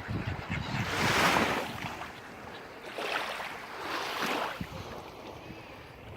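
Sea waves breaking and washing on the shore, surging loudest about a second in and again around three to four seconds.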